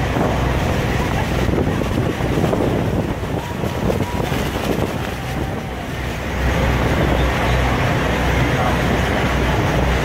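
Tour boat running through rough river water: the engine's low steady rumble under rushing, churning water, with wind buffeting the microphone. It eases a little in the middle and picks up again about six seconds in.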